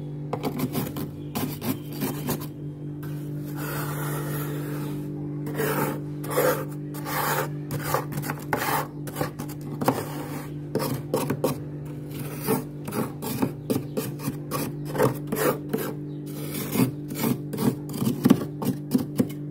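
Large metal spoon scraping thick frost off the walls of a freezer compartment in quick repeated strokes, with the crunch of loose frost. A steady low hum runs underneath.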